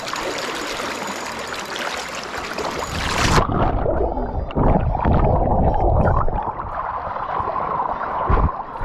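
Rushing river water loud on the microphone as a wading angler is dunked in the river. About three and a half seconds in, the high end cuts out and the water turns muffled, with low thumps, as he goes under.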